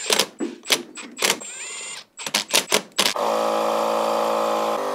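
Metal hardware clicking and clinking as it is handled for about three seconds. Then a small cordless driver's motor spins steadily for about two seconds, backing the 8 mm hex bolts out of the wheel hub.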